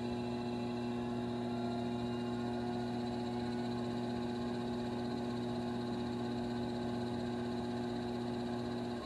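Electric potter's wheel running at a steady speed, a constant low hum with no change in pitch.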